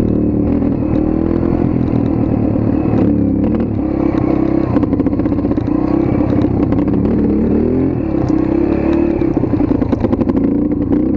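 Motorcycle engine running as it is ridden, its pitch rising and falling with repeated revving and easing off the throttle, with scattered clatter mixed in.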